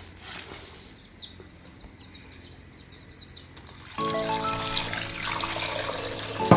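A small bird chirping in a quick run of short, falling chirps. About four seconds in, background music with steady held notes starts over a faint hiss.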